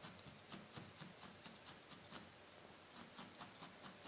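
Faint, quick pokes of a barbed felting needle stabbing into wool on a burlap pad, about four a second, with a short pause past the middle.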